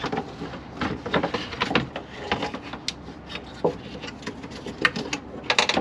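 Plastic third-brake-light housing being worked loose and pulled out of its mount: irregular clicks, knocks and rubbing scrapes, coming thickest near the end.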